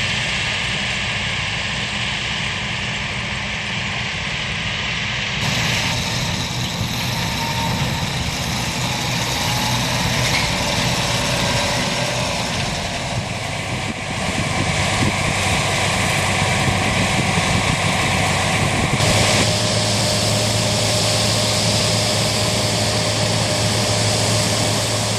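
Large diesel harvest machinery running steadily, from combine harvesters and tractors working a maize field. The sound changes abruptly about five seconds in and again after about nineteen seconds, each time to a different mix of engine noise.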